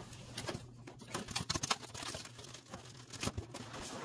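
Scattered light clicks, taps and rustles of cardboard and plastic packaging being handled as a boxed electronic dartboard is unpacked.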